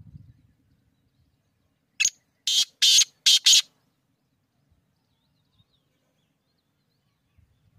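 Black francolin (kala teetar) calling: one grating phrase of five harsh notes, starting about two seconds in and lasting about a second and a half, the last notes coming in quick succession.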